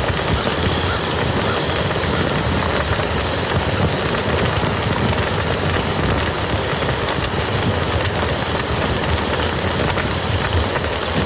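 Campfire crackling and popping over the steady rush of a flowing river. A faint high chirp repeats a little more than once a second throughout.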